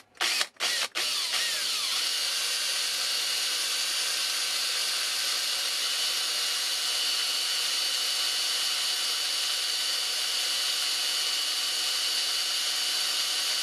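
Handheld power drill with a 1/16-inch bit drilling through a steel shaft: a few short bursts on the trigger in the first second, then the drill runs steadily at an even speed.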